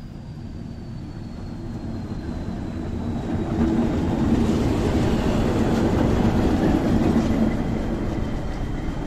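Nilgiri Mountain Railway train running by, its running noise building up from a few seconds in, loudest around the middle, then easing off a little.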